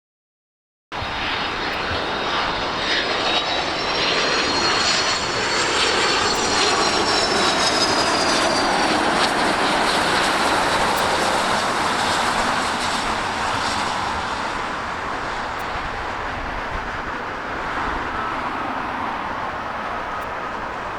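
Jet airliner passing overhead: a steady rush of jet engine noise with a high whine that rises and then falls in pitch, loudest about halfway through and then slowly easing off.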